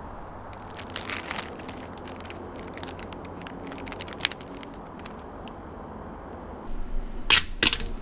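Plastic food packaging crinkling and rustling as a bag of frozen shrimp tempura is opened and its plastic tray pulled out, with small clicks. Near the end, two loud sharp plastic clacks as trays are set into the microwave.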